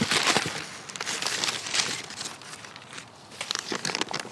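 Brown packing paper crumpling and rustling inside a cardboard shipping box as hands dig through it, in irregular crackly bursts with cardboard rubbing.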